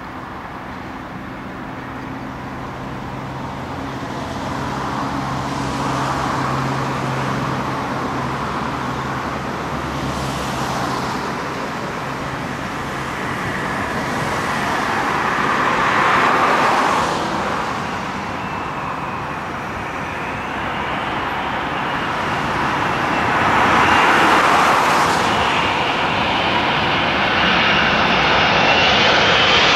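Airbus A380 jet engines on final approach, growing steadily louder as the airliner nears, with a high engine whine rising out of the rush in the second half.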